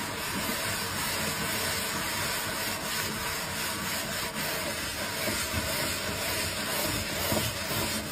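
Sponge scrubbing a soapy stainless-steel sink: a steady wet, foamy scrubbing hiss.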